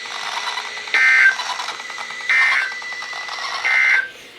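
NOAA Weather Radio sending its SAME digital header: three short bursts of warbling data tones about a second and a half apart, the coded start of a new warning message, heard through the radio's speaker over a faint hiss.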